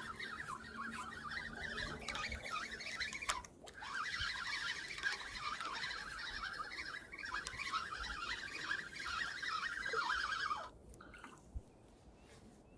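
A dense chorus of animal calls, many short chirps overlapping, that cuts off abruptly near the end, leaving only faint background.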